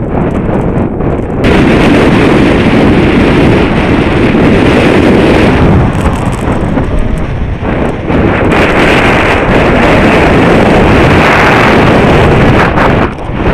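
Strong wind buffeting the microphone while soaring under a speed wing: a loud, steady rush that drops briefly around six to eight seconds in and again near the end.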